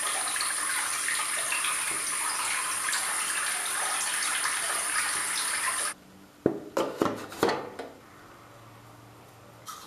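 Bathroom sink tap running steadily while hands splash water onto a face, with a thin high whine on top of the water. The water cuts off suddenly about six seconds in, followed by a few sharp knocks and clicks.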